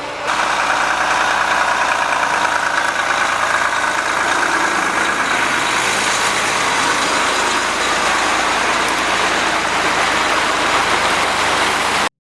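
Heavy machine engine running steadily. It starts suddenly just after the beginning and cuts off abruptly near the end.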